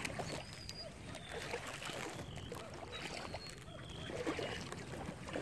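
Shallow brown floodwater sloshing and swishing in irregular strokes as someone wades through it on foot.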